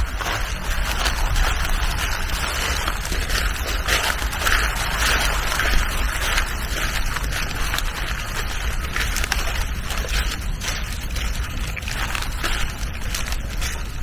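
Wind rumbling on a small camera microphone over a steady outdoor hiss.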